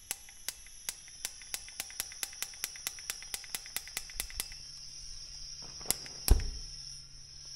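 Propane torch with its gas valve open, hissing steadily, while sharp ignition clicks come about three times a second without lighting it; the clicks pause a little past halfway, then two louder clicks follow.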